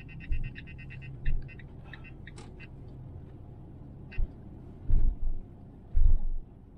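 Low rumble of a cargo van's engine idling while stopped, with a few dull thumps and faint clicks, the loudest thumps near the end.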